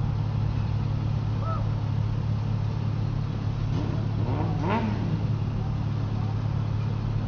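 Steady low drone of idling utility-truck engines, with faint distant voices calling out briefly about four seconds in.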